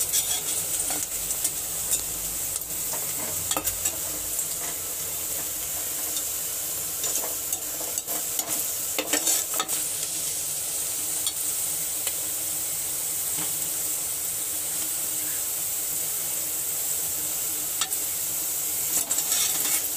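Sliced onion sizzling in hot oil in an aluminium pressure cooker as it fries to brown, with a spatula stirring and now and then clicking and scraping against the pot.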